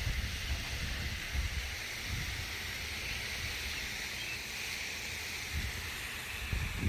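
Wind rumbling on the microphone, with a faint steady high hiss of outdoor background behind it.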